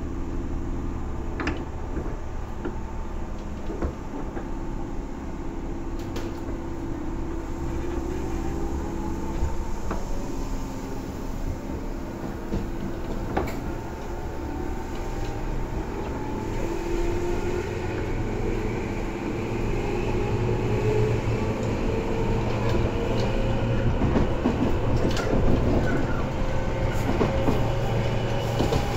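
Tobu 10000 series electric train heard from inside the car. A steady hum runs through the first half; from about halfway the motor and gear whine rises slowly in pitch and grows louder as the train picks up speed. Short clicks of the wheels over rail joints come and go throughout.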